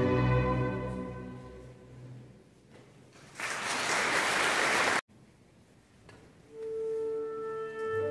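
Live orchestral music with bowed strings, a chord dying away over the first couple of seconds. Then comes a loud rushing noise for about a second and a half that cuts off suddenly. After a short quiet gap the music comes back with a long held note.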